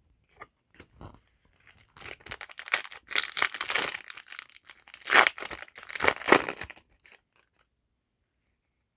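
Foil wrapper of a Yu-Gi-Oh! booster pack being torn open and crinkled. A few faint ticks come first, then a couple of seconds of crackling tearing, loudest in two strong rips, before it stops.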